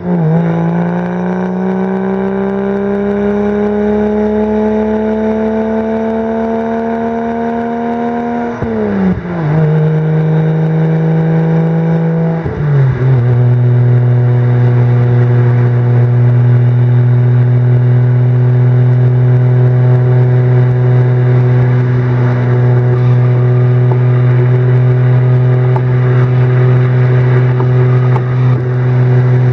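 Single-turbo BMW 335i inline-six with a VRSF exhaust pulling under load, its note rising slowly. It drops sharply at upshifts about 8.5 and 12.5 seconds in, then settles into a steady, lower-pitched cruise.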